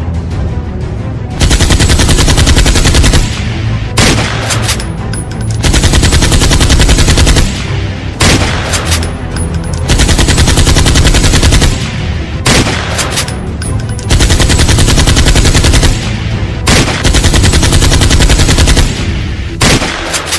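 Dubbed-in machine-gun sound effect: about five bursts of rapid automatic fire, each about two seconds long, with short bursts between them.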